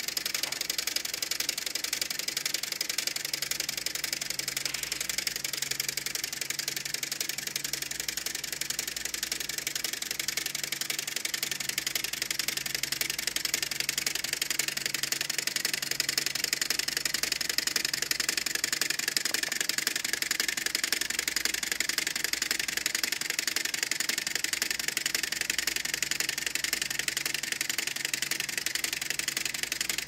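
Dozens of small Axicom signal relays on a single-board relay computer switching as it runs a program at high clock speed, making fast, continuous clicking with no pauses.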